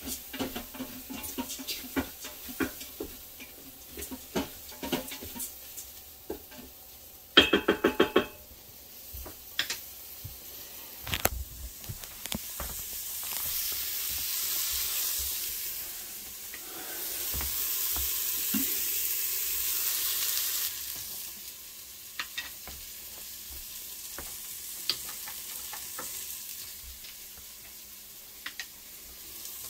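Rice and mushrooms sizzling in butter in an Instant Pot's steel inner pot on sauté, with small clicks of a spoon against the pot; the sizzle swells twice in the middle. About seven seconds in, a loud short run of rapid pitched pulses, the loudest sound.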